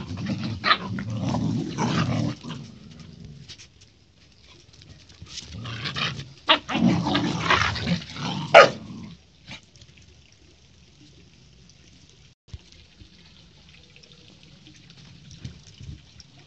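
Husky and golden retriever puppies play-fighting: low growls with sharp short barks, in two bouts, the second ending about nine seconds in.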